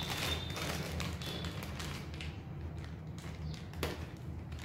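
Hands handling and opening a small package: light taps and rustling of packaging, over a steady low hum.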